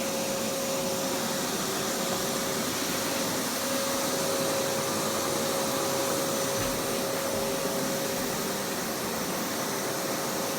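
Household vacuum cleaner running steadily, a constant whine over its even rushing noise.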